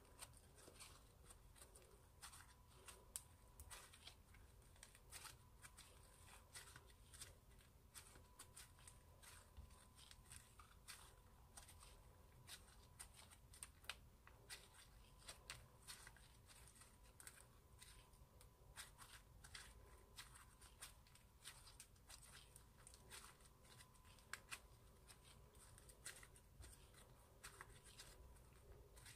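Glittery, sequin-flecked slime being squished, stretched and folded by hand, giving faint, irregular crackling clicks and pops.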